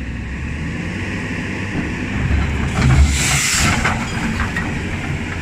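Diesel excavator engines running steadily under load, with a loud hiss rising and falling over about a second around the middle.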